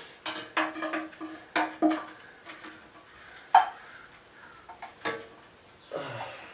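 Sharp metal clinks and clanks of hand tools and bolts against engine parts during a diesel engine teardown, about six separate strikes, several with a short metallic ring.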